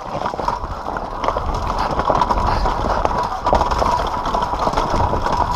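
Yamaha YZ250 two-stroke dirt bike riding over rough ground, the engine holding a fairly steady note under a clatter of many short knocks and rattles from the bike bouncing over the terrain.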